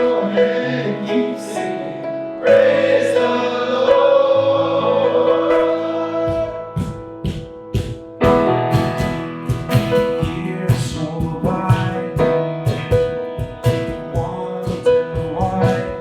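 Contemporary worship song: band and singing with a long held sung note, then a steady drum beat comes in about six seconds in.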